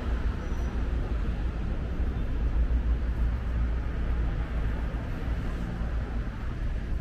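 Town street ambience: a steady low rumble of traffic.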